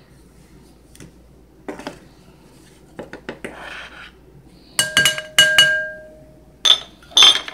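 A plastic measuring spoon scrapes and rustles in a spice jar, then is tapped several times on the rim of a mixing bowl to knock the ground spice out. Each tap sets the bowl ringing with a clear clinking tone.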